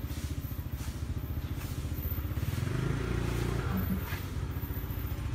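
An engine idling: a steady low rumble with a fast, even pulse that swells slightly around the middle.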